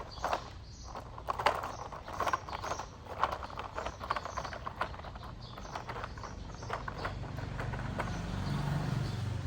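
Irregular knocking and clattering, about one or two knocks a second, then a low engine-like drone that grows louder in the last few seconds.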